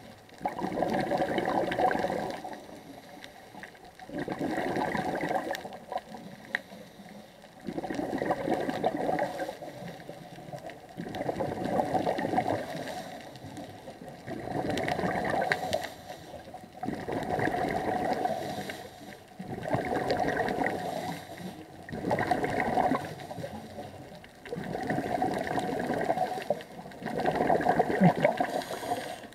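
Scuba diver's regulator heard underwater: the diver breathing steadily, each exhalation a burst of gurgling bubbles, about every two to three seconds.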